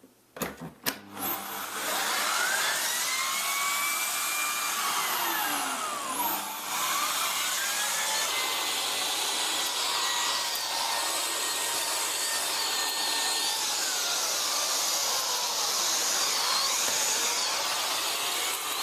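Hotpoint Energy Power 4 bagless cylinder vacuum cleaner running after a few clicks at the start. Its motor noise is steady, with a whine that rises and falls in pitch several times.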